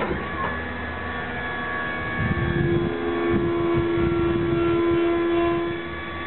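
Subaru mini truck running with a steady mechanical hum that grows louder about two seconds in and eases back shortly before the end.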